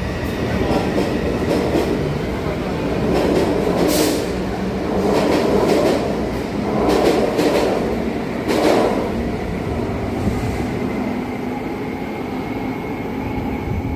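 Taipei Metro C301 subway train departing an underground station: running noise with several sharp bursts of wheel clatter as the cars pass the platform, fading after the last car has gone.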